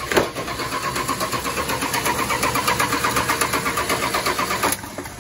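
Starter cranking the 225 slant-six of a 1986 Dodge D150 in an even rhythmic churn, without the engine catching, until it stops abruptly near the end. The engine gets no fuel: the new-old-stock carburetor's needle and seat is stuck.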